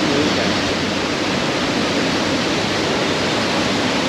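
Steady rush of a fast-flowing, steaming hot-spring stream tumbling over rocks.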